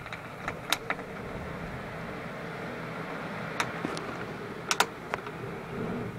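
Strong wind and rough sea rushing past a cruise ship's balcony as a steady noise, with a scatter of sharp clicks: three in the first second, then a close pair and a single one later on.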